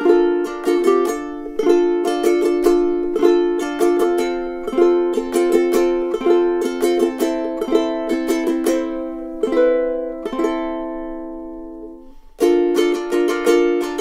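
Uma all-solid mahogany concert ukulele played solo, a fast run of plucked notes and chords that ring on. About ten seconds in, a last chord rings out and fades, and the playing starts again suddenly near the end.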